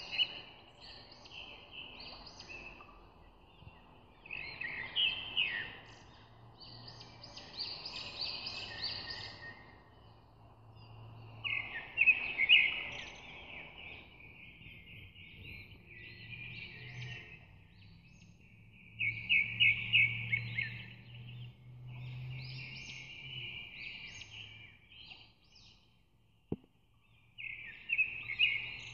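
Birds chirping and trilling in bursts every few seconds, over a faint low hum, with one sharp click near the end.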